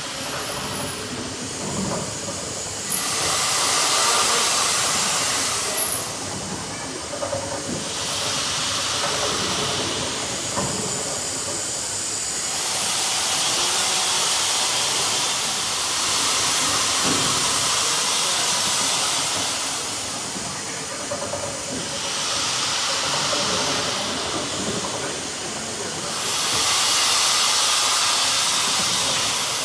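The Sir William Prescott triple-expansion steam engine running, its steam hissing in long swells that rise and fall every few seconds over the steady sound of its moving gear.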